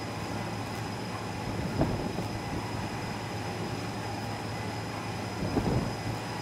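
Steady mechanical hum with a low drone and a thin high whine, with two brief louder knocks, one about two seconds in and one near the end.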